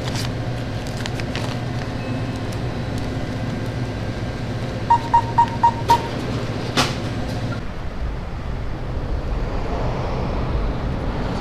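Steady low hum of a convenience store interior. About five seconds in, a cash register beeps five times in quick succession as its keys are pressed, followed by a single click. Later the sound changes to a low outdoor rumble.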